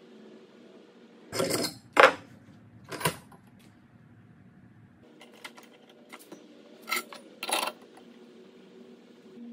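Steel parts clanking against one another and the vise as a square steel tube and a bent steel link rod are handled: three sharp metallic clanks in the first three seconds, the second the loudest, then light clicks and two clinks later on.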